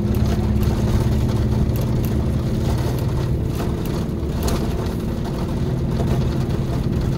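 Scania K 400 coach engine running steadily with an even low hum, with a few light clicks over it.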